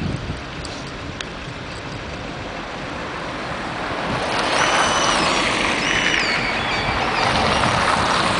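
Road vehicle noise that grows louder about four seconds in. A high, thin whine comes and goes twice over it.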